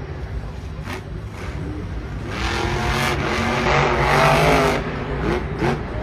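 MAX-D monster truck's engine running under hard throttle, its pitch rising and falling as it is revved, loudest in a long burst from about two to five seconds in.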